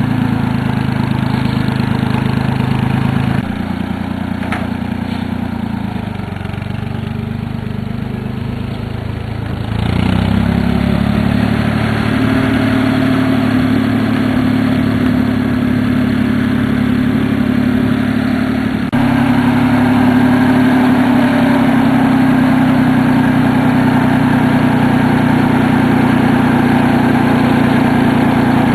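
Ford 3000 tractor's three-cylinder gasoline engine running steadily. It drops a little quieter about three seconds in, then speeds up and gets louder about ten seconds in, and gets louder again near the twenty-second mark.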